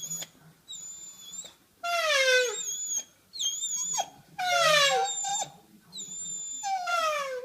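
Dog howling in long calls that slide downward in pitch, about three of them, with thin, high, wavering whines in between.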